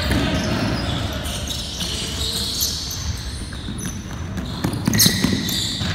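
Players running on a wooden sports-hall court with basketballs bouncing, thuds and knocks echoing in the large hall; the sharpest knocks come about five seconds in.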